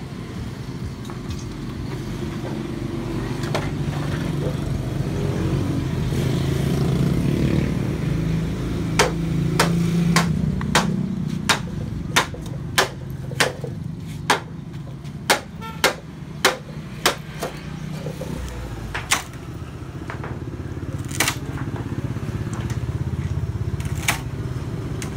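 Steady low hum of nearby motor traffic, with a run of sharp knocks, about a dozen over eight seconds starting about nine seconds in, then a few more spaced out near the end.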